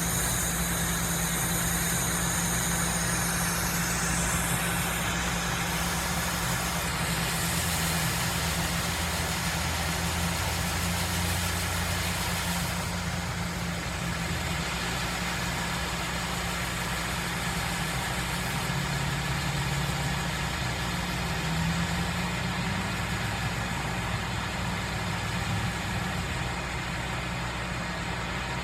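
Combine harvester engine running steadily, with a thin high whine over it for the first few seconds.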